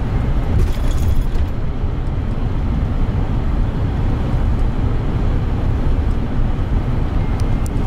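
Steady low rumble of a coach's engine and road noise heard inside the bus, with a few faint clicks near the start and near the end.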